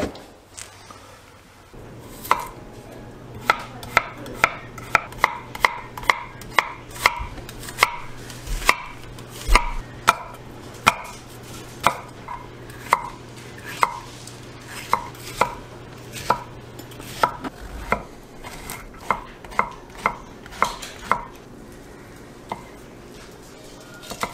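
Chef's knife chopping vegetables on a wooden cutting board: a steady run of sharp knocks, about two a second, that stops a few seconds before the end.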